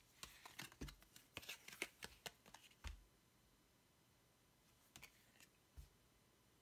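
Lego Ninjago trading cards handled and slid over one another by hand: a quick run of soft card rustles and taps for about three seconds, then a few more a couple of seconds later.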